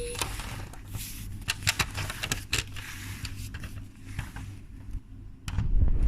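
Scattered sharp plastic clicks and knocks from a toy train set being played with, over a low steady hum. Near the end a loud low rumble sets in, like something handled close to the microphone.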